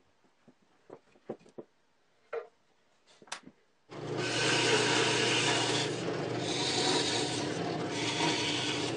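A few light taps and knocks of wooden parts being handled. Then, about four seconds in, a drill press starts and runs steadily with a low motor hum while its cutter bores into a plywood disc.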